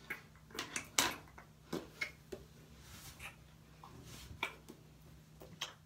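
Hands working through and fluffing dry, loose natural hair, giving soft rustles and about a dozen scattered short clicks, the sharpest about a second in.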